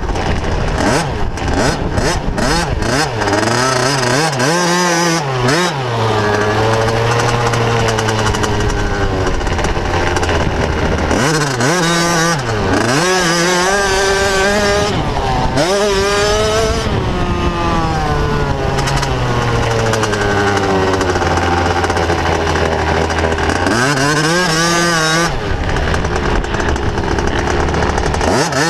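Motocross bike engine heard close up from the handlebars while riding, revving up and down through the gears, with the throttle snapped shut and reopened a few times.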